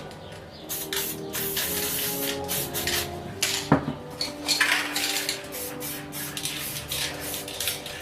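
Short hisses of spray paint from aerosol cans, with clinking of hard objects being handled and one sharp knock about halfway through, over background music.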